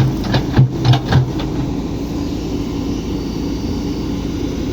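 JCB backhoe loader's diesel engine running steadily, with a few sharp knocks in the first second and a half.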